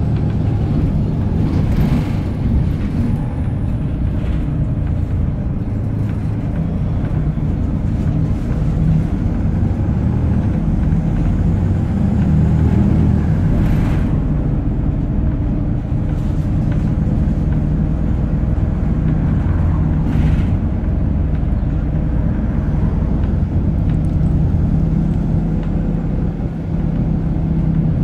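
Volvo B7RLE bus's seven-litre six-cylinder diesel running under way, heard from inside the passenger cabin as a steady low drone with road noise. A few short knocks or rattles break through, about two, fourteen and twenty seconds in.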